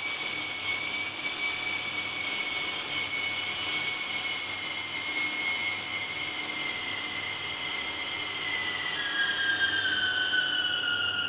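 Eerie whistling in an underground station waiting room: air still moving after an express train has passed through the tunnel. Several steady high whistles, joined by a lower one near the end, slowly slide down in pitch and begin to fade.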